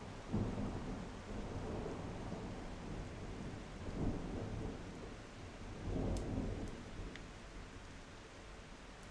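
Thunderstorm: steady rain under rolling thunder that swells in low rumbles several times, about half a second in, around four seconds and again around six seconds, then dies away.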